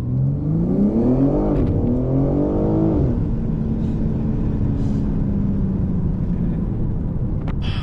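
A car engine accelerating hard. The revs climb for about a second and a half, dip briefly at a gear change, climb again, then drop sharply about three seconds in. After that it settles into a steady, lower drone.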